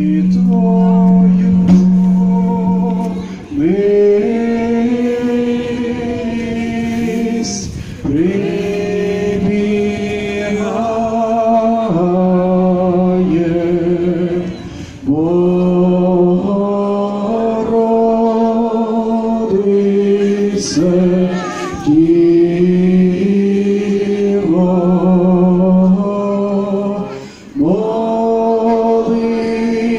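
People singing a slow Ukrainian song together, in long held, wavering notes and phrases of a few seconds each.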